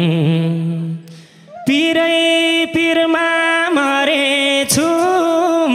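Nepali dohori folk singing into a microphone. A low voice holds a wavering note until about a second in, then after a short break a higher voice holds a string of long, steady notes, each broken off briefly about once a second.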